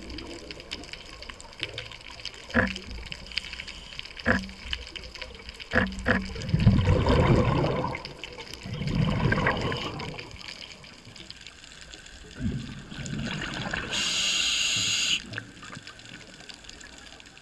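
Scuba regulator breathing underwater: two long rumbles of exhaled bubbles, then a high hiss of an inhalation through the demand valve near the end. A few sharp clicks come before the first breath.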